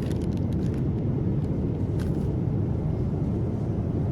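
Steady low rumble of airliner cabin noise in flight aboard a Boeing 787-9 Dreamliner, with a few faint ticks.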